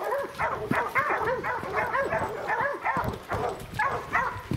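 A pack of bear hounds baying, with several dogs barking over one another in quick, rising-and-falling calls, several a second, with no let-up.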